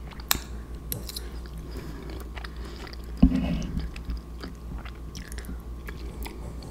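Close-up mouth sounds of someone chewing macaroni and cheese in a runny cheese sauce: wet smacks and small clicks, with one brief louder knock about three seconds in.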